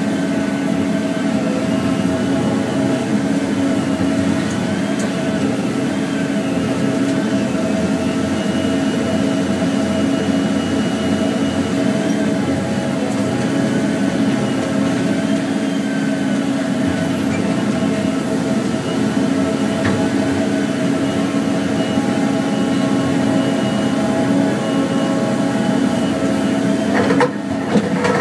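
Heavy diesel engine and hydraulics of a Volvo tracked feller buncher running steadily under load while its Satco 630 felling head grips and cuts a tree. A short burst of cracks about a second before the end, as the branches come down.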